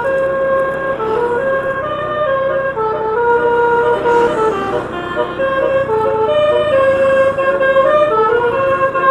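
Basuri telolet musical air horn playing a continuous melody, one held note stepping to the next without pause.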